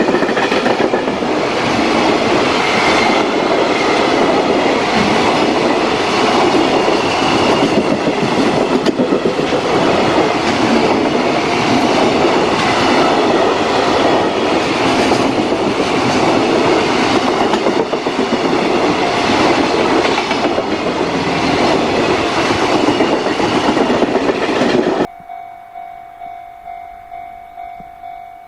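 Freight train passing close by, its wheels clattering rhythmically over the rail joints. About 25 seconds in, the sound cuts abruptly to a level-crossing warning bell, a steady electronic ding repeating about once a second.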